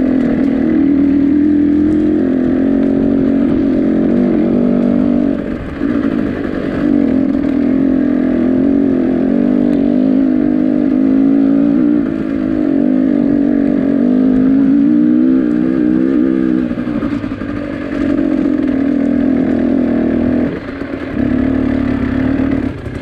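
A vehicle engine running hard under load, its pitch rising and falling with the throttle and easing off briefly several times.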